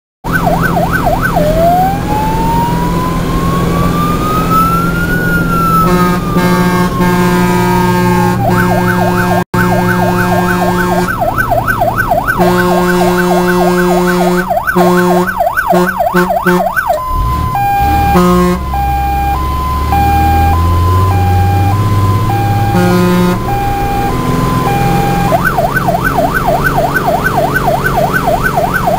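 Fire truck siren heard from inside the cab of a Star fire engine on an emergency run, over the truck's engine. The siren changes pattern: one slow rising-and-falling wail, then a fast warble, then a two-tone hi-lo for several seconds past the middle, then the fast warble again.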